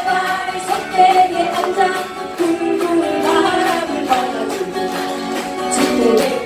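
Acoustic guitar ensemble strumming together while a group of voices sings the melody, amplified through a stage PA.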